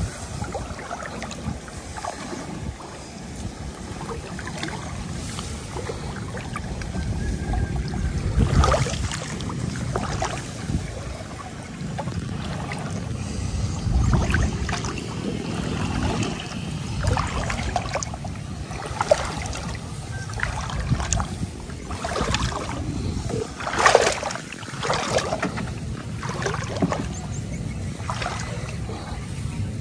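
Water sloshing and splashing in irregular bursts, some louder than others, as someone moves through a flooded rice-field ditch checking fish traps.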